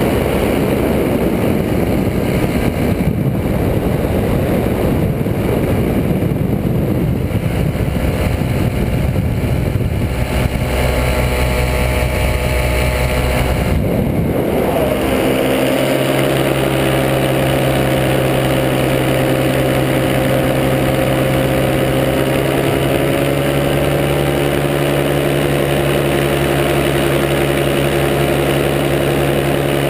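Paramotor engine and propeller running in flight. The sound is rougher for the first half, then changes about halfway through and settles into a steady, even engine note.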